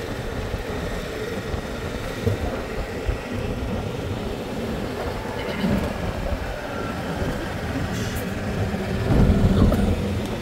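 Open golf cart driving along a paved road: a steady low rumble of the cart's running and road noise, with wind on the open cart, swelling louder near the end.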